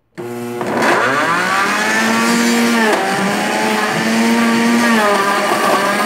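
Mondial ProMaster 1500 blender motor switched on at low speed, spinning up within about a second, then running under the load of frozen açaí and bananas, its pitch dipping briefly twice.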